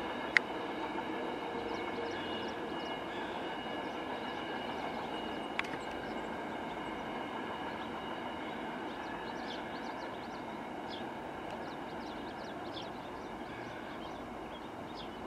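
Wheels of a passenger train's cars rolling on the rails, a steady noise slowly fading as the train pulls away. Two sharp clicks come about half a second in and near six seconds in.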